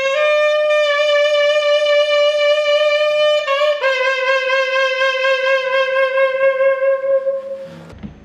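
Selmer Mark VI saxophone, freshly overhauled, playing two long held notes, the second slightly lower, with a short break between them; it stops shortly before the end.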